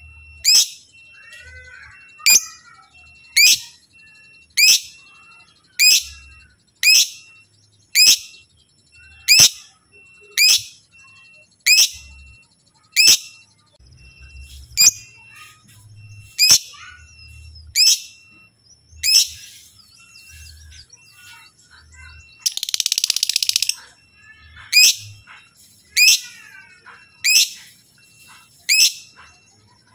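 Lovebird giving loud, sharp chirps in a steady series, one about every second and a bit, each a quick downward-sweeping note. About two-thirds through, a harsh hissing burst lasts a second or so.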